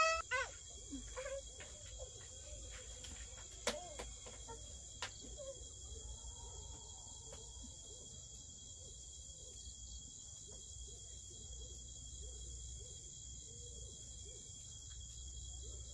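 Steady shrill chorus of insects such as crickets, with a fine fast pulsing. A brief wavering animal call trails off at the very start, and a couple of sharp clicks come about four and five seconds in.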